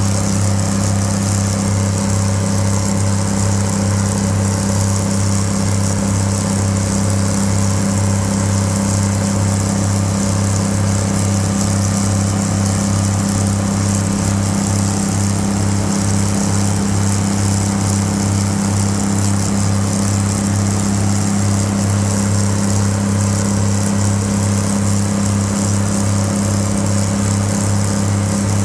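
The twin Cummins NTA-855 inline-six diesel engines of a GE 80-ton center-cab switcher locomotive run hard and steady at high revs under load, with a screaming sound as the locomotive climbs a grade.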